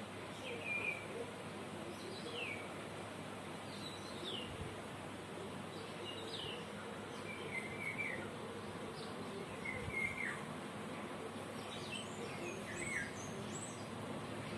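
Birds chirping: short, quick falling chirps every second or two over a steady background hiss.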